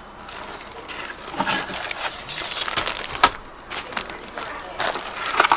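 Packaging being handled and opened by hand: irregular crinkling and rustling with scattered clicks, including one sharp click just after the middle.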